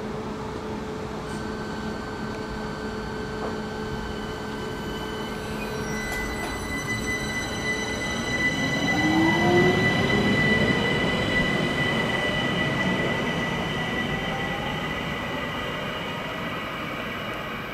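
ÖBB class 4024 Talent electric multiple unit pulling away, with steady electrical whines at first. About eight seconds in a rising motor whine sets in as it accelerates; the sound is loudest around ten seconds and then slowly fades as the train moves off.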